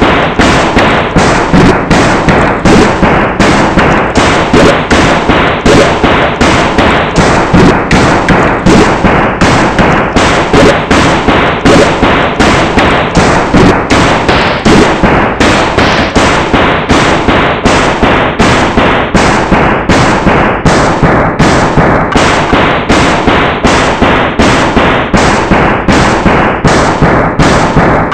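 Heavily distorted, clipped remix audio built from chopped sneeze samples, hitting in a steady beat of about two hits a second.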